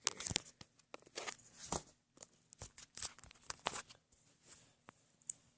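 Irregular clicks and short rustles of fingers handling and flicking a fidget spinner, with no steady spinning whir.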